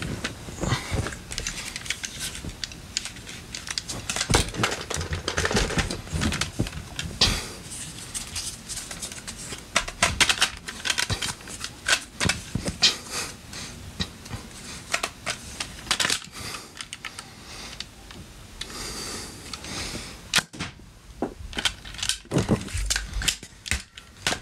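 Plastic toy foam-dart blasters being handled: a run of sharp, irregular plastic clicks, knocks and rattles.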